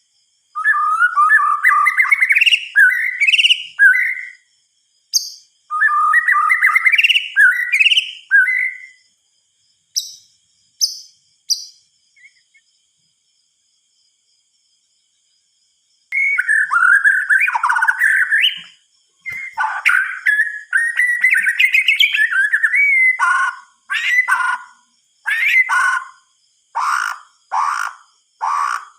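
White-rumped shama singing: bursts of rich, varied warbled phrases with pauses between them and a few seconds' silence in the middle, then a long varied phrase that turns into a run of short sharp notes repeated about once a second near the end.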